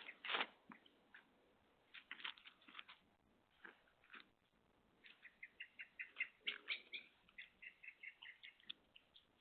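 Faint sharp clicks and crunches in the first few seconds, then a quick, even run of high chirps from about five seconds in, about four or five a second, alternating between two pitches.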